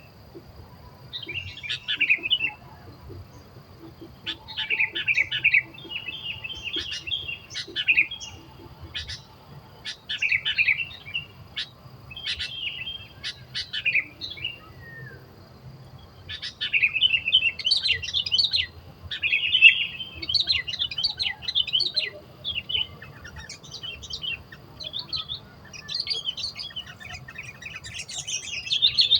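Sooty-headed bulbuls calling: short, bubbling chirpy phrases repeated every second or two, growing busier and more overlapping near the end.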